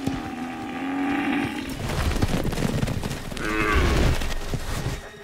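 American bison calling twice, a drawn-out bawl in the first second and a half and a shorter, falling one about three and a half seconds in. Underneath, the heavy thudding of hooves on the ground as the bison run.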